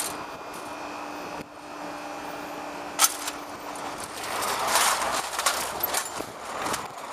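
Automatic level-crossing barrier booms rising, the drive mechanism giving a steady hum with a sharp clunk about three seconds in. In the second half a car drives over the crossing, and its tyre and engine noise swells.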